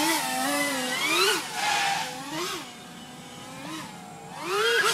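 Eachine LAL3 3-inch FPV quadcopter's brushless motors and propellers whining, the pitch rising and falling sharply with quick throttle punches. It goes quieter in the middle and swells up to a loud, high whine near the end.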